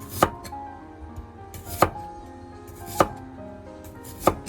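A kitchen knife slicing through a white radish and striking the cutting board: four separate sharp chops, about a second and a half apart.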